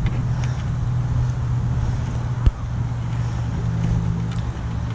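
A motor vehicle engine idling with a steady low hum. A single sharp knock comes about two and a half seconds in.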